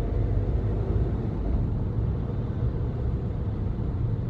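Car engine and road noise heard from inside the cabin while driving: a steady, low-pitched sound with no distinct events.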